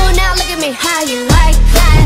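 Background music with a heavy, deep bass line and gliding melodic lines; the bass drops out for about a second in the middle, then comes back with deep kick drums.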